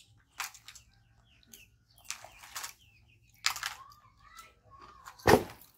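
Crisp snack chips being bitten and chewed: a series of short, crackly crunches, the loudest near the end.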